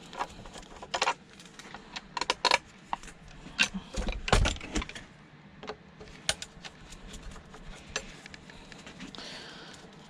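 Metal clinks, taps and rattles of a screwdriver and loose parts being handled while an old sewing machine is taken apart, with one heavier knock about four seconds in and fewer clicks after about six seconds.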